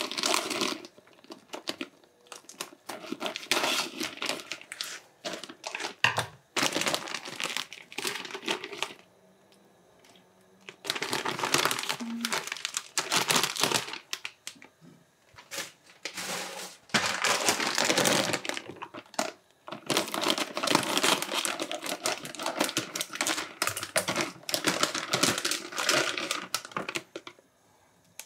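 Plastic packaging of rice cakes crinkling in irregular bursts as the pack is handled and the cakes are pulled out, with a short quiet spell about nine seconds in.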